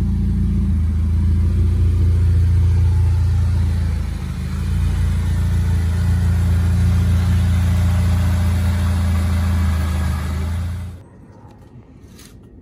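Supercharged 2.0-litre LSJ Ecotec four-cylinder engine of a Chevy Cobalt SS running steadily, with a brief dip about four seconds in, then shut off suddenly near the end.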